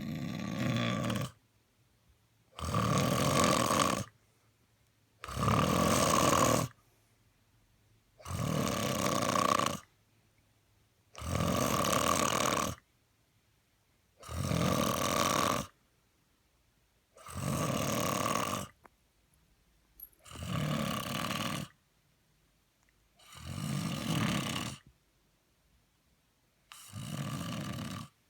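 A man snoring in steady, regular cycles: about ten long, rasping snores, each lasting about a second and a half, repeating roughly every three seconds.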